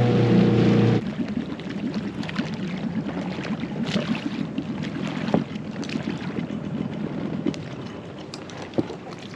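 Water lapping and sloshing around an inflatable dinghy coming alongside a concrete dock, with wind on the microphone and a few light knocks as the boat is handled. A louder steady drone stops abruptly about a second in.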